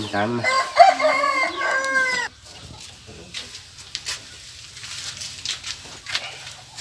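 A rooster crows once, a single drawn-out call of about two seconds that drops in pitch and cuts off, followed by a quieter stretch with a few faint ticks.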